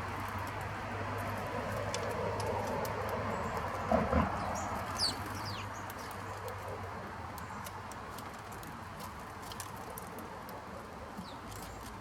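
Wild birds at a feeder: a few quick, high, falling chirps about four to five seconds in, among scattered light clicks. A knock near the first chirps is the loudest sound, and a low steady hum fades out about halfway through.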